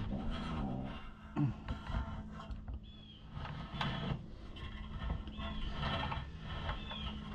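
Scattered light clicks and knocks of hand work on the tractor's throttle cable and linkage, over a steady low hum, with a few faint short high squeaks.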